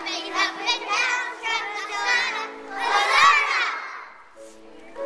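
A group of young children singing and shouting together over a steady accompaniment, with one loud rising-and-falling shout about three seconds in; the voices fall away near the end, leaving the accompaniment.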